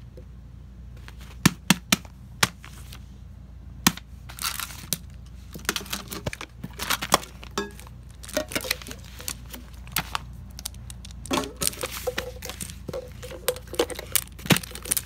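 Small toys being handled and set down on a paper sheet: scattered sharp clicks and knocks of plastic fidget toys and metal putty tins, with short bursts of paper rustling.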